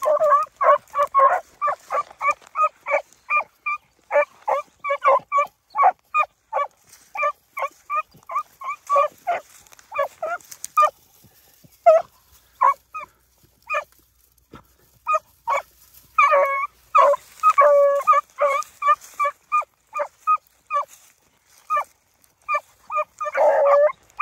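Two beagles barking in quick, short chops as they run a rabbit's scent trail, about two to three barks a second. The barking thins out briefly a couple of times and picks up again near the end.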